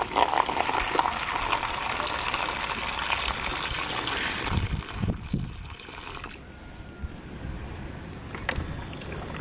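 Water poured from a plastic jug into a small plastic basin, splashing steadily for about four and a half seconds, then a fainter trickle as the water drains out of the basin into the jug below.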